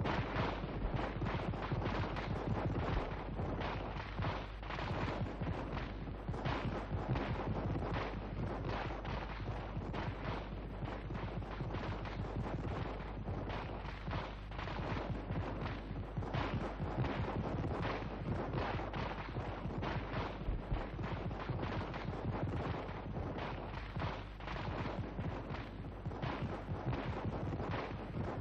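Sustained gunfire: many shots overlapping without pause, over a steady low hum.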